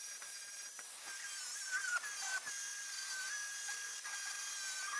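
Angle grinder with a flap disc spinning at high speed: a steady high-pitched whine whose pitch dips briefly a couple of times as the disc is pressed onto the metal.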